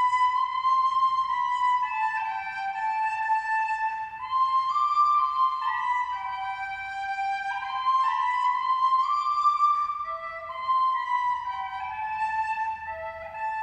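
A flute-like wind instrument playing a slow solo melody in held notes, one at a time, stepping downward in pitch near the end.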